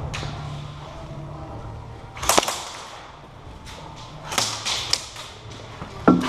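Airsoft gunfire: scattered sharp snaps, a single one about two seconds in, then several close together in the second half.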